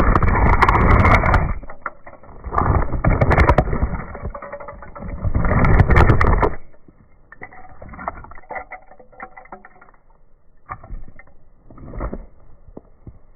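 Shoe sole grinding and scraping broken toy car pieces against asphalt: three long, loud scrapes in the first six or so seconds, then quieter crunching and clicking of small fragments.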